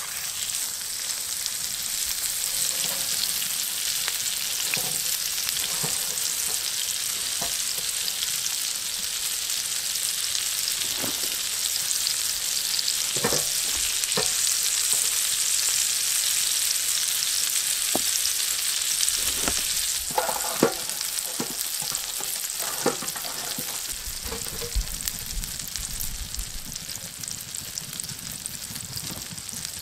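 Beef steak searing in hot fat in a black steel frying pan on a wood-burning tent stove: a steady frying sizzle. A few light clicks and taps of a utensil in the pan come through, mostly around the middle.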